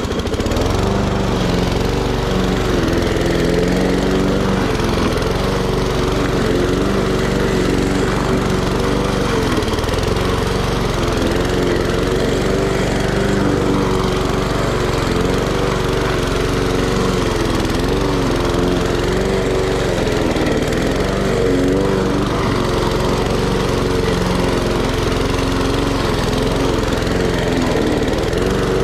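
Walk-behind gas push lawn mower running steadily while cutting tall grass, its engine note dipping briefly in pitch now and then.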